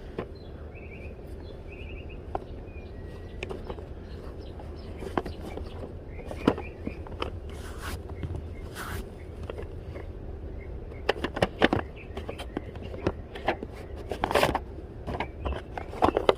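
Objects being handled while sorting through a storage bin: scattered knocks, clicks and scrapes, busiest in the last few seconds, over a steady low hum.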